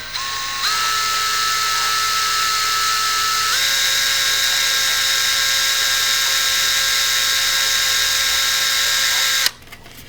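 Electric drill running steadily as it bores a hole, a high whine that shifts pitch slightly about a third of the way through, then stops suddenly near the end when the drill is released.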